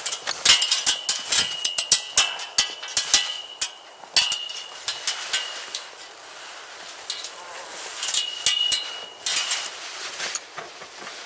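Metal parts of a trampoline being taken apart: rapid runs of sharp metallic clinks and knocks, some with a short ring, through the first few seconds and again near the end.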